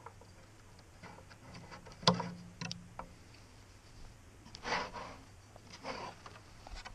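Wooden pallet fence panels being handled and shifted by hand: one sharp wooden knock about two seconds in, a few light clicks, then two short scrapes of wood rubbing on wood.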